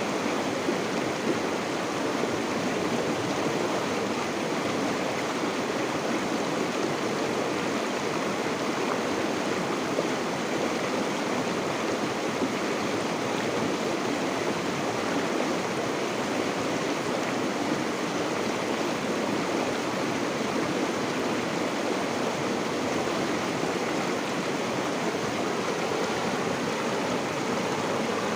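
River water flowing over rocks, a steady rushing and splashing with no change.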